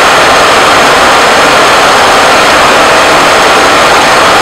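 Conventional milling machine running a rotating friction stir tool that is plunged into an aluminium 5083 plate and stirring silicon oxide powder into it: a loud, steady machine noise.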